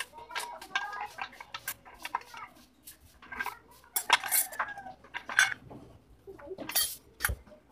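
Metal parts of a Hyundai Starex automatic transmission clinking and clattering as they are handled and fitted into the case: an irregular run of sharp metallic clinks, some ringing briefly, the loudest a little past halfway.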